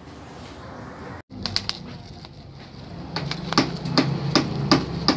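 Plastic wrapping being pulled and crinkled off a small bottle of brake fluid: sharp, irregular crackles and clicks, two or three a second, becoming denser in the second half. A steady low hum runs underneath from about halfway through.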